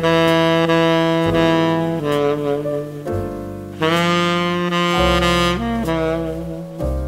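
Tenor saxophone fitted with a KPoudavoff Zimberoff Dukoff Hollywood 7* mouthpiece, playing a jazz phrase of held notes. It eases off about three seconds in, then comes back louder with a second phrase.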